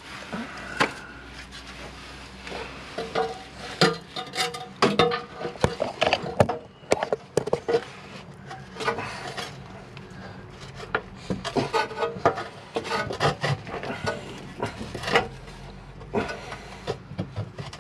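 Irregular knocks, clanks and scraping as an exhaust section is worked into place and pushed onto its rubber hangers under the car, with some sharper metal clinks among them.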